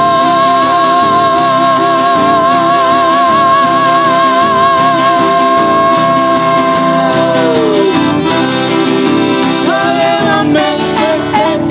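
Sertanejo love song: a singer holds one long note with vibrato over the band, then lets it fall away about eight seconds in while the instruments carry on.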